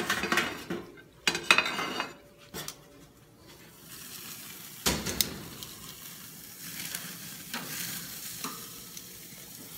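Steak sizzling on a grill over flare-up flames, its fat catching fire, a steady hiss that sets in about four seconds in. It is preceded by loud rustling and clatter in the first two seconds, and a sharp knock comes about five seconds in.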